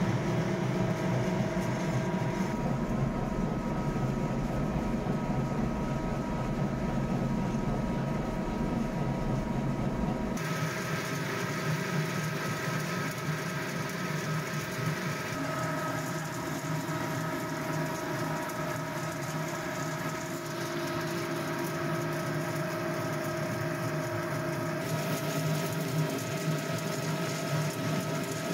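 Ring-die pellet mill running steadily under load, pressing chestnut wood chips mixed with coffee grounds into pellets: a continuous mechanical drone with several steady tones. Its deep low rumble drops away abruptly about ten seconds in while the drone carries on. The machine is running normally, not under strain.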